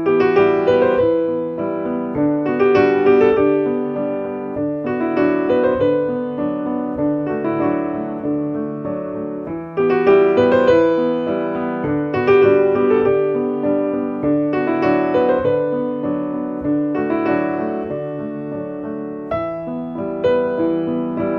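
Background music: a gentle solo piano melody in repeating phrases.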